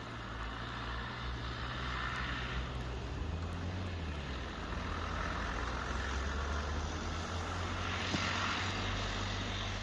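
A car driving on snowy roads: a steady low engine hum with tyre and road noise. The engine note shifts in pitch about three or four seconds in.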